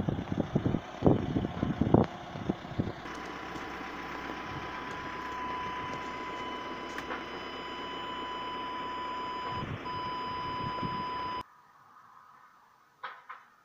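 Wind buffeting the microphone over a Volkswagen Amarok's 2.0 TDI diesel idling. Then, inside the cab, a steady high beep from the parking sensors sounds continuously over the idle, with one brief break. Engine and beep cut off together about eleven seconds in.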